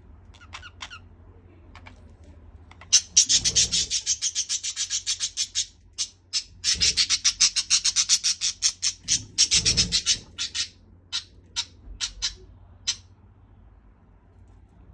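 Budgerigars squabbling with harsh, rapid squawks: a few short chirps, then three runs of fast pulsed squawking, each two to three seconds long, then single squawks tapering off.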